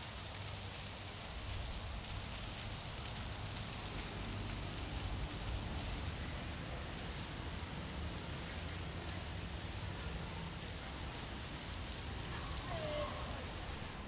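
A steady, even hiss of outdoor background noise, with a faint thin high whistle for a few seconds about halfway through.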